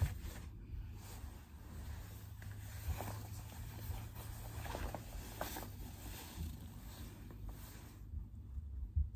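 Fabric rustling as a pair of new trousers is handled and turned over, with a few soft knocks over a low steady hum.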